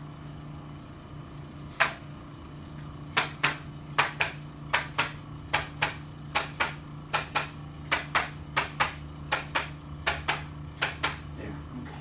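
A run of sharp mechanical clicks, irregular at about two or three a second, over a steady low hum.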